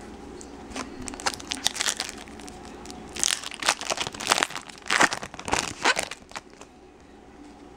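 Foil wrapper of a 2012 Bowman Draft Picks & Prospects baseball card pack crinkling and tearing as it is ripped open by hand. It is a dense run of sharp crackles that starts about a second in and is heaviest in the middle.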